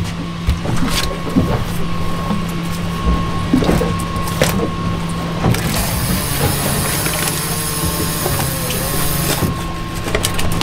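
Boat engine running steadily with a low hum, under scattered knocks and scrapes from a knife filleting a yellowfin tuna on the deck. A high hiss comes in for a few seconds in the middle.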